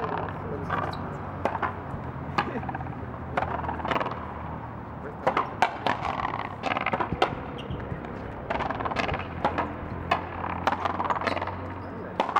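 Raqueta frontón rally: the hard rubber ball is struck by wooden rackets and knocks off the frontón wall and the concrete floor. The result is a run of sharp, irregular hits, at times two or three within a second.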